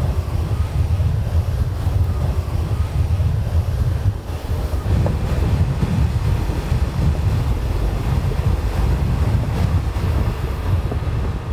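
Wind buffeting the microphone: a loud, gusting low rumble with a faint hiss above it.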